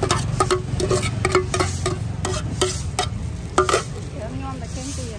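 Metal spoon scraping and knocking against the inside of a large metal mixing pot as the salad is tipped out, each knock making the pot ring briefly; about a dozen quick strikes, which stop near the end.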